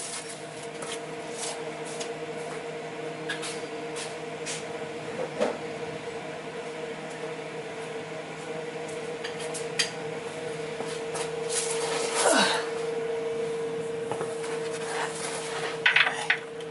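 Metal clinks and scrapes of hand tools being handled under a truck over a steady hum, with a short falling squeal about twelve seconds in and a cluster of sharp clinks near the end as a wrench goes onto the track bar bolt.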